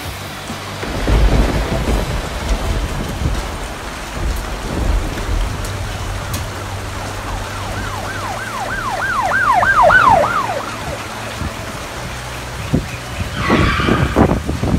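Heavy rain pouring steadily, with thunder rumbling from about a second in and again near the end. Partway through, a high tone rises and falls about three times a second for a couple of seconds, over the rain.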